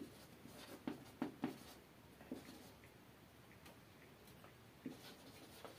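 Marker pen writing on a whiteboard: faint short strokes at uneven spacing, a few louder ones about a second in and again near the end.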